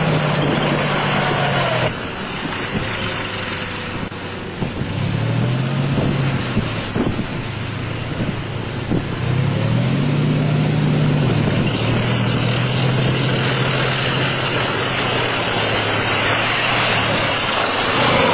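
T-55 tank's V12 diesel engine running as the tank drives over rough dirt, its pitch rising and levelling off twice as it revs. A few short knocks come through in the middle.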